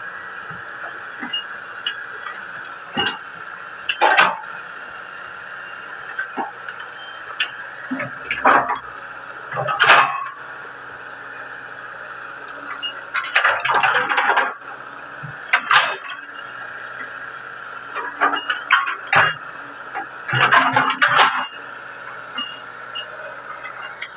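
Hitachi 110 excavator working a ditch: a steady whine from the running machine, broken by irregular metallic clanks and knocks, some single and some in quick clusters.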